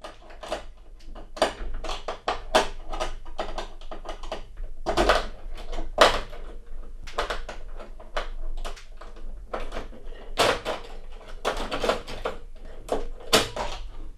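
Irregular clicking and rattling of a door's lock and handle being worked, with a few louder knocks.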